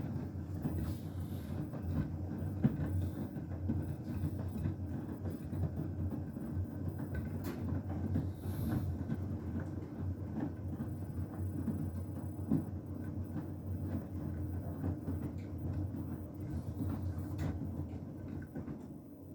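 Beko WTK104121W washing machine's drum turning during the main wash, with a wet, sudsy load of towels tumbling: a steady rumble with small irregular clicks and knocks. It dies away near the end as the drum stops.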